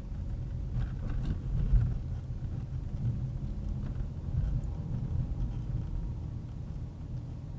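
Car driving: a steady low rumble of engine and tyres, with a few faint knocks and rattles about a second in.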